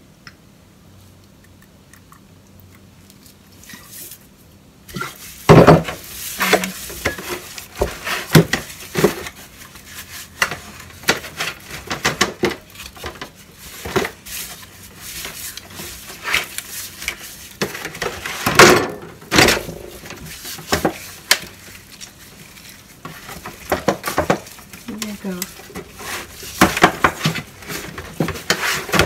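A disposable aluminium foil pan crinkling and knocking irregularly, starting about five seconds in, as a raw pig head is turned and rubbed by gloved hands inside it.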